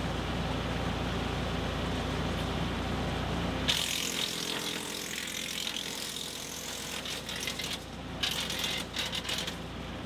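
Frontier WC1105 PTO-driven wood chipper running with a steady hum. From about four seconds in, a dense rattling, crackling noise as a branch is fed in and chipped.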